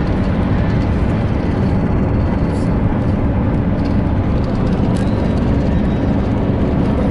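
Steady cabin drone of a car cruising at about 130 km/h with the engine turning near 3,000 rpm: road and wind noise under a low engine hum.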